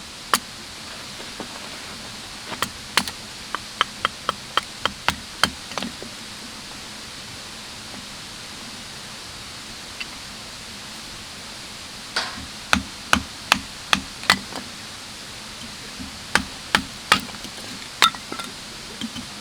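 Firewood being chopped or split: runs of sharp wooden knocks at about two strikes a second, with pauses between the runs, over the steady rush of a river.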